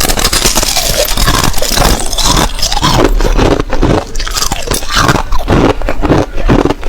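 Thin ice being bitten and chewed: dense, continuous crunching and crackling.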